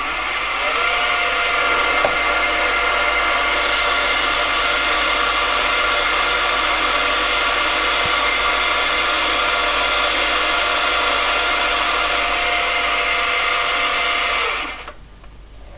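Mini lathe running and cutting, its motor and gearing whining steadily while the tool takes a full-millimetre-deep pass along a plastic bar. The whine rises briefly as it comes up to speed, holds steady, then cuts off near the end when the lathe stops.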